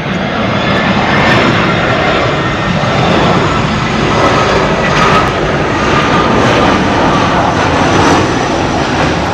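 Jet airliner engines running in a loud, steady roar with a faint high whine as narrow-body airliners come in low on landing approach.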